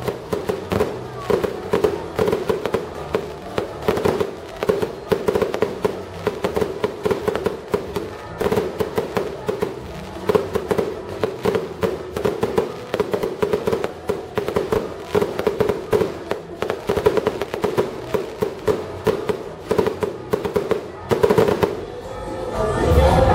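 Fireworks crackling and popping in a rapid, dense run of small bangs. Near the end the crackling gives way to a louder rise of crowd voices.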